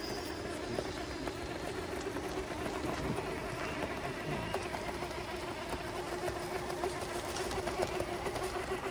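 Traxxas TRX-4 Ford Bronco RC crawler's electric motor and geartrain whining at one steady pitch as it crawls slowly up a rock slab, with scattered light clicks.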